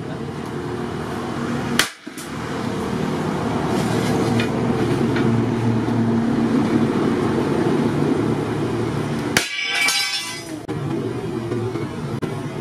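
Sharp metallic clanks of a sledgehammer and a steel disc-plough blade knocking together: one about two seconds in and a quick cluster near ten seconds, over a steady low background rumble.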